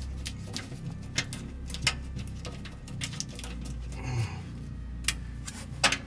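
Silver tape crinkling and being pressed against the sheet-metal wall of a truck side box, giving scattered clicks and crackles. A steady low fan hum runs underneath.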